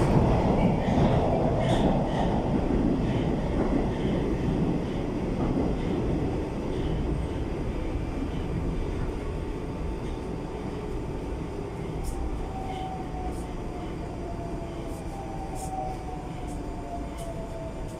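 81-760/761 metro train heard from inside the car as it brakes into a station: the running noise fades steadily. A faint whine sliding down in pitch comes in during the last third as the train slows.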